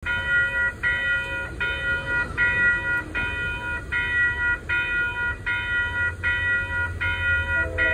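Railroad grade-crossing warning bell ringing steadily, a little more than one strike a second, as the crossing gates lower for an approaching train, over a low rumble that grows. In the last moment a diesel locomotive's air horn begins to sound.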